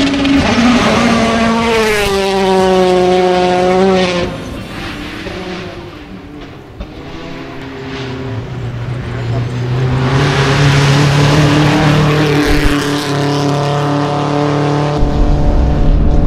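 Rally car engine revving hard under load as the car passes, its pitch rising and falling, then fading by about six seconds in. An engine then grows louder again and holds a steady high note, and near the end a low rumble joins in.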